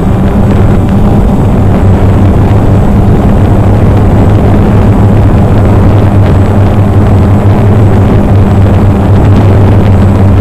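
A multirotor drone's electric motors and propellers running with a loud, steady buzzing hum as it climbs, picked up close by the camera mounted on the drone.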